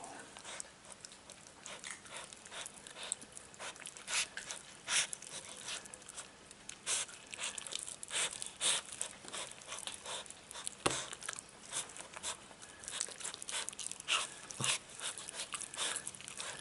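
Six-week-old kuvasz puppy chewing and gnawing a chunk of raw meat, in irregular wet clicks and smacks, with a couple of sharper knocks in the second half.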